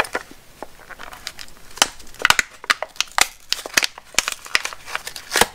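Plastic blister packaging crinkling and crackling as it is pulled apart by hand to free small magnetic hooks, in irregular sharp crackles and clicks.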